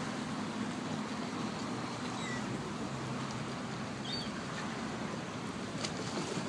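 Steady low hum of a lake boat's engine over an even wash of outdoor noise, with a few short high bird calls about two seconds in and again about four seconds in.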